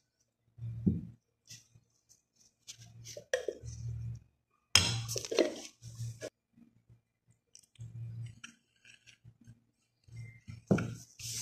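A wooden spoon knocking and scraping against a white ceramic bowl while stirring a dry powder mix, in scattered clinks and scrapes with pauses between them. The loudest knocks come about five seconds in and again near the end.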